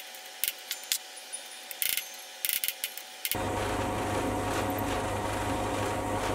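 Light, uneven hammer taps on a steel bar held in a lathe's four-jaw chuck, nudging it true. About halfway through, these give way abruptly to a small metal lathe running steadily with a low hum while a center drill in the tailstock chuck drills the end of the 1045 steel bar.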